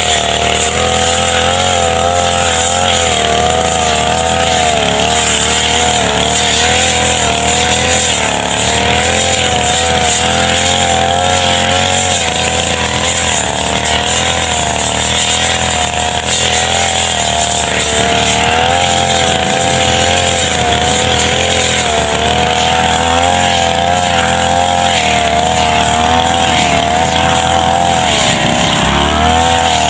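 Brush cutter engine running steadily at high speed, its pitch wavering up and down, with a brief dip near the end.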